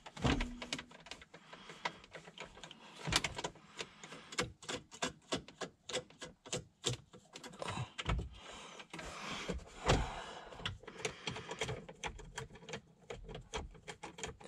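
Screwdriver turning a screw out of a plastic lower dash panel: a rapid run of irregular clicks and scrapes.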